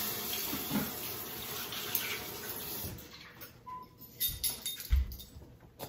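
A kitchen tap running steadily for about three seconds, then shut off, followed by a couple of short knocks.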